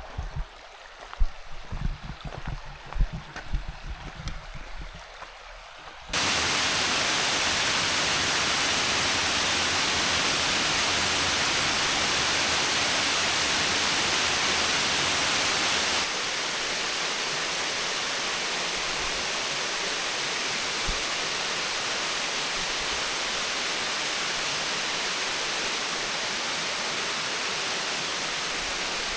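Creek water rushing over rocks: a loud, even hiss that starts abruptly about six seconds in and drops a little about ten seconds later. Before it, a quieter stretch with scattered low thumps.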